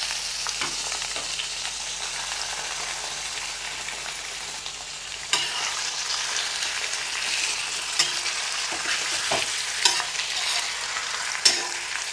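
Raw chicken pieces sizzling in hot mustard oil in an iron kadhai, a steady frying hiss. From about five seconds in, a perforated metal spoon stirring them clacks and scrapes against the iron several times.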